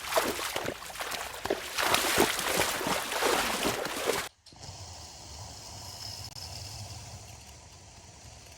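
Water splashing and sloshing for about four seconds, then an abrupt cut to a much quieter background with a low hum and a faint high tone.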